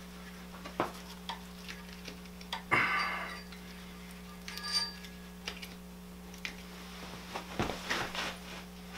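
A knife blade works along the spine of a skinned whitetail deer carcass to free the backstrap. Scattered small clicks and scrapes of the blade on bone and tissue, with a louder scrape about three seconds in and another cluster near the end.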